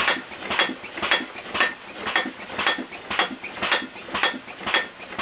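Homemade air-compressor-powered, computer-controlled alarm bed mechanism knocking in a steady rhythm, about two knocks a second, some with a slight metallic ring.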